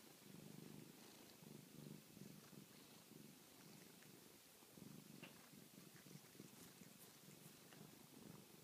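Domestic cat purring close by while being stroked: a low rumble that swells and fades with each breath, about once a second.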